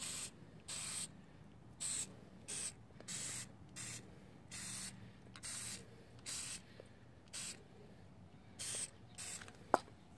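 Aerosol can of Permatex copper spray gasket sealant hissing in about a dozen short, quick bursts as it is traced along a cylinder base gasket, with a sharp click near the end.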